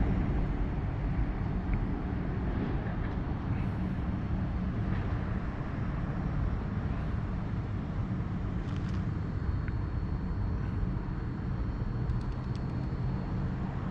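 Steady low rumble of vehicle noise, with no horn sounding; a faint thin high whine joins about nine seconds in.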